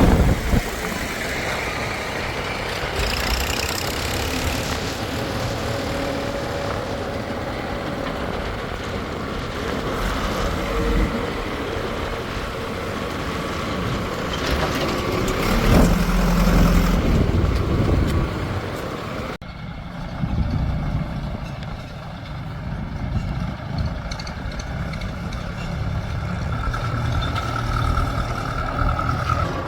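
Diesel engines of a JCB 3DX backhoe loader and tractors running continuously during mud loading, with a sudden change in the sound about two-thirds of the way through.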